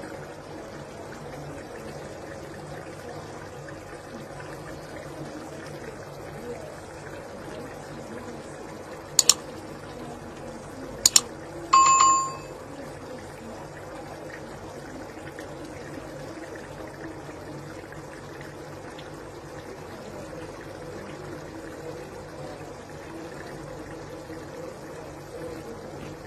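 Kitchen sounds: a steady watery hiss, like water running or boiling, broken near the middle by two pairs of sharp clicks and then one short metallic clink of kitchenware that rings briefly like a small bell.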